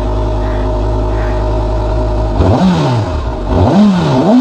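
Honda CB500SF's four-cylinder engine, just started, idling steadily, then revved with three quick throttle blips in the second half, each rising and falling in pitch.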